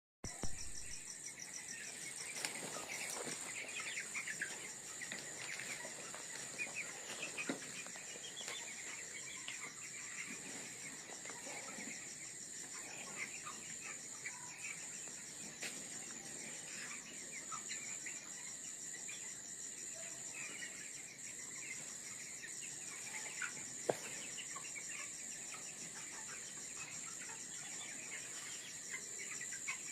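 A flock of young broiler chickens peeping and cheeping in many short chirps, over a steady, fast-pulsing high insect trill. There is a single sharp click about 24 seconds in.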